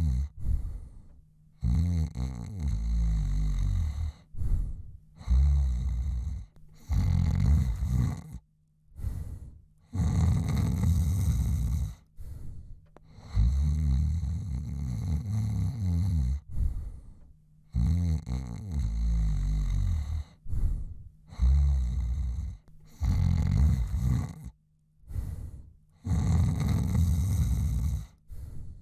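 A man snoring: a string of snores, about one every two seconds, some long and some short, with brief quiet gaps between them.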